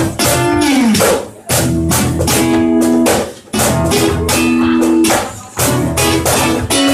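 Acoustic guitar played live, strummed chords struck a few times a second with notes ringing between the strokes.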